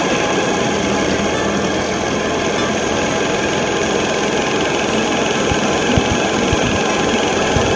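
Homemade model steam engine with two cylinders driving a corkscrew, running steadily under steam from its gas-fired boiler: a dense, even hiss with mechanical running noise, and a few low knocks near the end.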